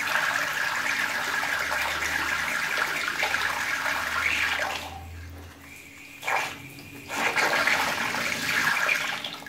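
Water pouring from the outlet of a JUNY 1/2-inch automatic float valve and splashing into a tank of water. About five seconds in the flow drops away, spurts briefly, runs again, then falls off near the end as the float shuts the valve at full level.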